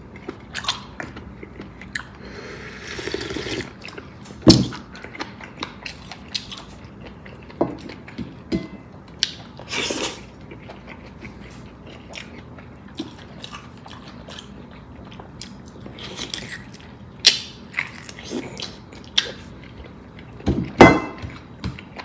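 Close-up eating sounds: a person chewing and biting, with scattered small clicks and knocks and a couple of louder sharp knocks, about four seconds in and near the end.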